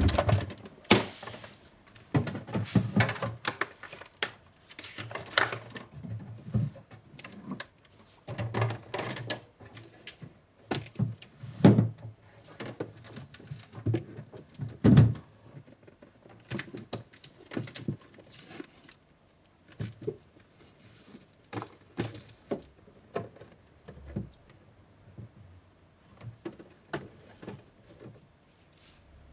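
Irregular light knocks, thuds and clatter of objects being handled indoors, with a few louder thuds among them.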